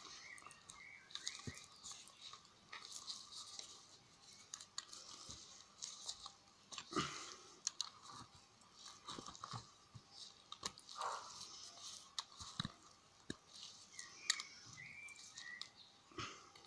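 Pliers gripping and working the steel can of an AA alkaline battery to peel it open, giving faint, irregular crunching, scraping and clicks with the rubbing of gloved hands.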